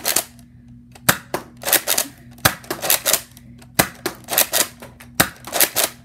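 Nerf Accustrike Raptorstrike dart blaster fired shot after shot, with its magazine being emptied: a string of sharp snapping clicks, some single and some in quick clusters of two or three.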